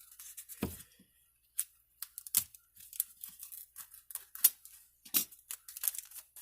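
Packaging being torn open and handled by hand: irregular crinkling and tearing rustles with a few soft knocks.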